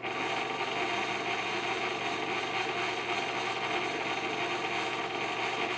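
Electric fan running with bad bearings: a steady mechanical whir and drone that starts suddenly and holds even, the noise of its worn motor bearings.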